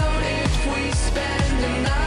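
Background pop music with a steady beat of about two strokes a second.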